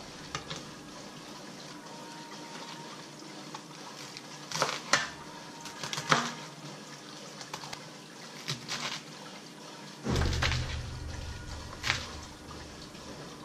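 Kitchen knife slicing through a head of Chinese (napa) cabbage on a wooden cutting board: scattered crisp crunching cuts and knocks of the blade on the board, with a longer, louder crunching rustle about ten seconds in.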